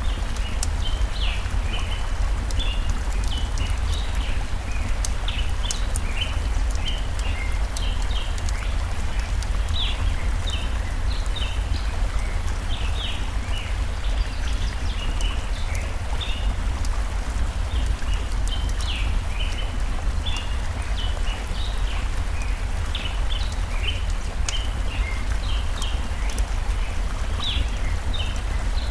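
Forest stream running steadily with a deep low rumble, small birds chirping in short high notes throughout, and scattered sharp crackles from a wood fire.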